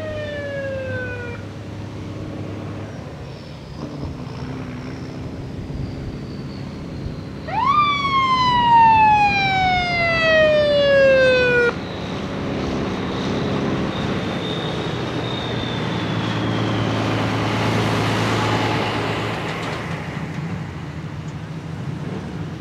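A vehicle siren sounds: the tail of a falling wail at the start, then about seven seconds in a fast rise and a long falling wail that cuts off sharply. Cars and trucks drive past on the road, loudest about eighteen seconds in.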